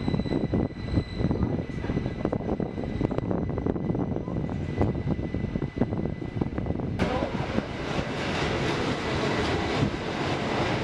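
Rhaetian Railway train running on street track, heard from an open carriage window: a rumble of wheels on the rails with small clicks and knocks and wind on the microphone. A thin steady whine sounds for the first few seconds, and about seven seconds in a louder rushing hiss sets in.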